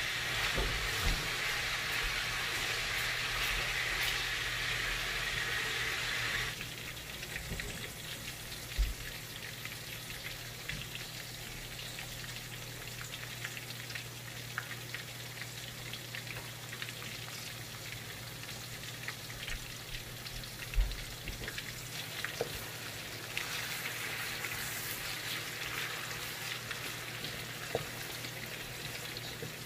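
Bananas and brown sugar frying in shallow oil in an aluminium wok: a steady sizzle with small crackles, which drops noticeably about six seconds in. A wooden spatula knocks sharply against the wok a couple of times while turning the bananas.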